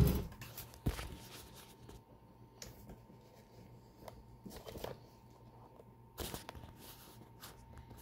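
Faint handling noise from a camera being moved and repositioned. There is rustling with a few light clicks and knocks: one about a second in, a few near five seconds, and a louder one just after six seconds.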